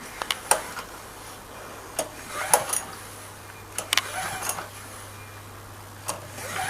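Recoil pull-cord starter of a Champion lawnmower's 3.5 hp overhead-valve engine pulled about four times, roughly every two seconds, each pull spinning the engine over briefly with a clicking rattle. The engine, with no fuel in it, does not fire; the pulls are a compression check, and there is not a huge amount of compression.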